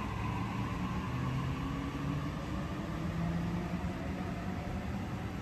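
Sydney Trains Waratah electric train pulling out of the platform and moving away, its traction motors and wheels giving a low, slightly gliding hum over a steady rumbling noise.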